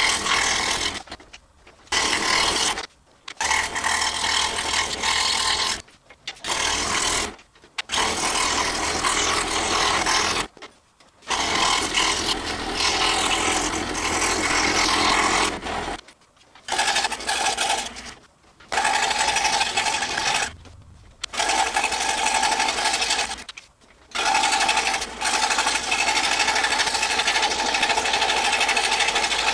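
Scroll saw running with a fine No. 2 blade cutting through hardboard, a steady reciprocating buzz of blade and motor. The sound breaks off briefly about nine times and picks up again at the same level.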